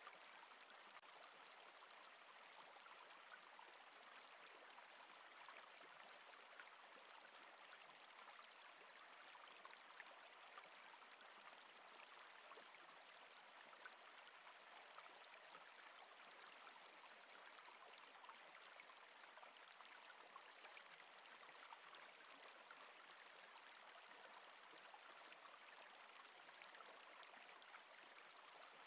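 Faint, steady sound of a flowing stream, water running and trickling.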